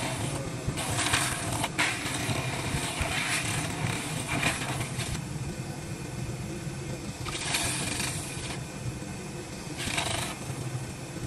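A woodworking power tool's motor running steadily, with repeated bursts of cutting or scraping on wood, each lasting about a second, a few seconds apart.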